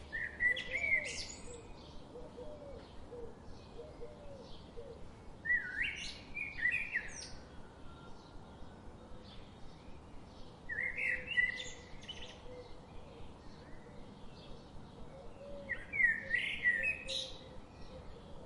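A songbird singing short warbled phrases, four of them about five seconds apart, each lasting a second or two.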